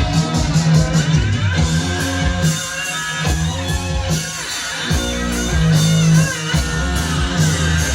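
Rock music with guitar, playing back from a cassette on a Yamaha K-550 deck.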